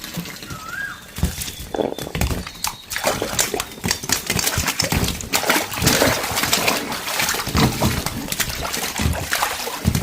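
Water splashing and sloshing in an inflatable kids' pool, in irregular bursts.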